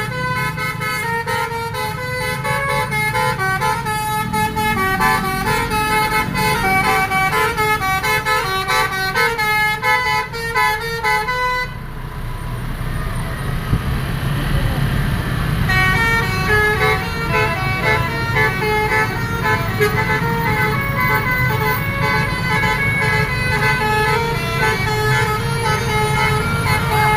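'Telolet' multi-tone musical horn playing a quick jingle of short stepped notes, over the low rumble of a running vehicle. The tune breaks off about twelve seconds in, leaving only the engine and road noise, and starts again about four seconds later.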